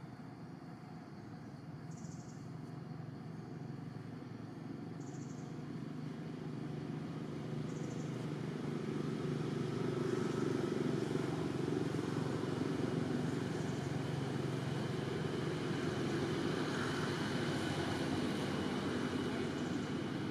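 Low, steady rumble of a motor vehicle's engine, growing louder over the first ten seconds and then holding.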